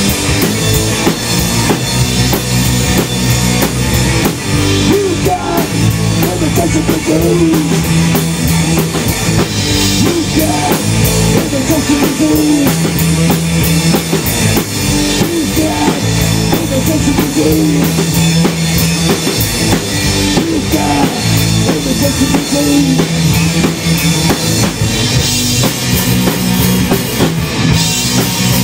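Rock song playing with a full band: drum kit, bass and guitar, the bass repeating a steady riff.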